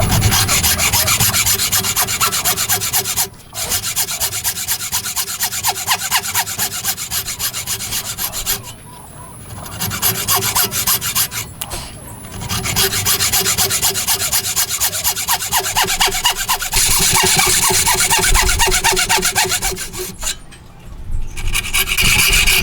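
Hand tool working wood in rapid, even back-and-forth strokes, in several runs broken by short pauses.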